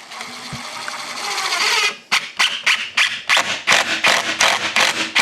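Cordless drill driving a screw into wood: the motor runs steadily for about two seconds, then in short trigger bursts, about four a second, as the screw is driven home.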